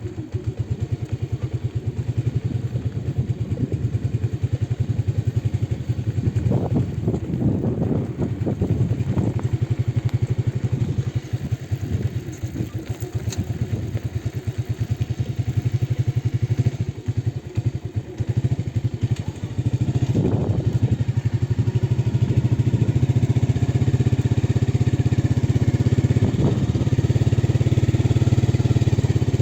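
A motorcycle engine running while riding along a road, with a rapid steady beat. It grows louder and steadier about two-thirds of the way through.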